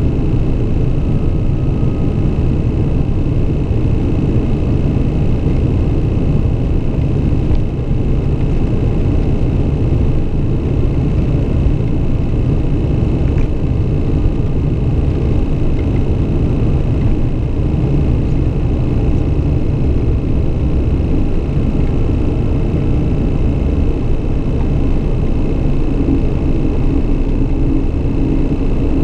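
Steady cabin noise of a Beechcraft King Air 200's twin turboprop engines on final approach: a constant deep rumble with a steady high whine over it.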